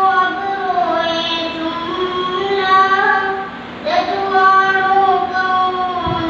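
A boy singing a naat, an Urdu devotional poem, solo and unaccompanied. He holds long notes whose melody glides up and down, with a short break for breath about halfway through.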